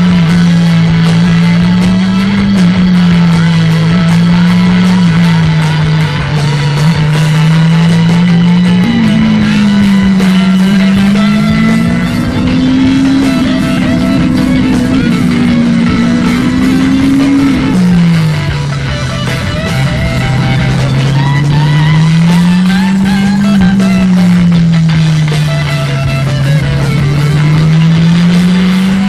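Background rock music with guitar over a Honda CBR600RR's inline-four engine, whose note rises and falls smoothly as the bike rides through bends; the engine note climbs about nine seconds in, holds higher, and drops back just past the middle.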